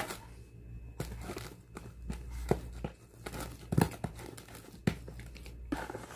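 A hand kneading and squeezing a thick, sticky homemade catfish bait dough in a plastic basin, making irregular squishes and slaps as the mix is worked together.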